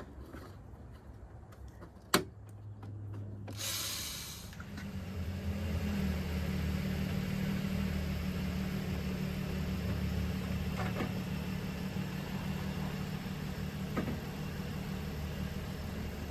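Engine of a 2004 Nissan Murano idling steadily after its radiator replacement. There is a sharp click about two seconds in and a brief hiss about four seconds in, after which the low hum of the idle grows louder and holds steady.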